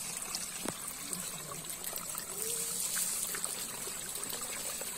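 Water trickling and pattering at a bamboo fish-trap screen, with a constant scatter of tiny clicks and splashes from a dense mass of small fish wriggling in the shallows.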